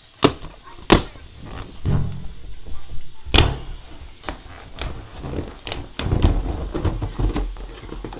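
Balloons popping: several sharp pops, the loudest about a second in and a little past three seconds, with rubbery rubbing and handling noise between them.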